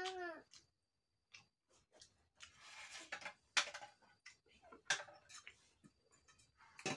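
Mouth sounds of someone eating rice and chicken curry by hand: chewing and wet lip smacks as short, irregular clicks, a few of them sharper.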